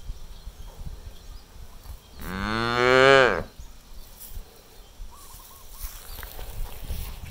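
A cow moos once, a single call of a little over a second starting about two seconds in, rising in pitch as it gets louder and then stopping abruptly.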